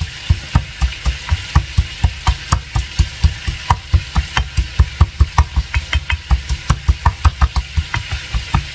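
Garlic cloves being pounded with salt in a mortar and pestle: a fast, steady run of heavy strokes, several a second, each a dull thump with a click of the pestle on the bowl.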